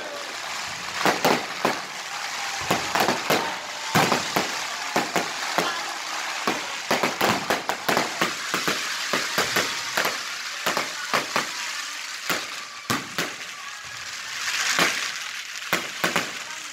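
Aerial fireworks going off in quick succession: many sharp cracks and bangs at irregular spacing over a steady crackling hiss, with a louder swelling hiss near the end.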